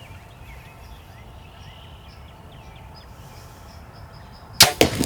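Quiet outdoor ambience with a small bird chirping in a run of short high notes. Near the end a sudden loud burst of rustling and knocking breaks in.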